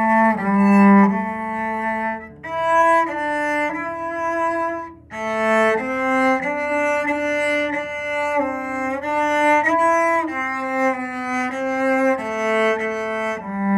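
A cello playing a slow melody in smooth, sustained bowed notes, one after another, with two short breaks between phrases near the start.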